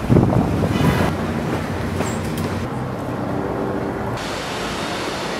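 Steady rumble of vehicle noise, rougher and louder in the first second, with a faint steady tone about three seconds in.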